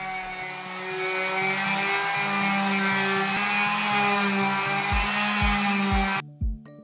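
Background music: sustained chords that change pitch now and then. A kick-drum beat of two to three thumps a second comes in near the end. The chords cut off suddenly a little after six seconds, leaving the beat.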